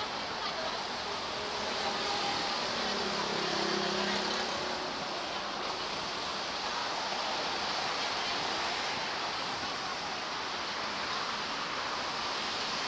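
Steady roar of city street traffic, with a low hum from a passing engine about three seconds in.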